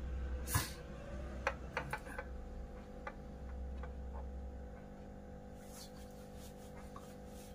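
Whiteboard marker tip tapping and scratching on a whiteboard as numbers are written: one sharp tap about half a second in, then scattered light clicks and a short scratchy stroke, over a steady low hum that stops partway through.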